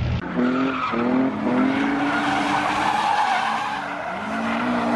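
A drift car's engine revving hard while its rear tyres skid as it slides sideways through a corner. The revs climb in several short pulls and are then held high, with the tyre screech loudest mid-slide. The revs dip briefly near the end and then build again.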